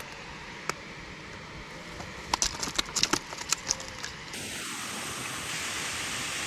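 A quick run of sharp clicks and crackles as a white sack is handled, about two to four seconds in. Then, after a cut, a steady rush of flowing river water.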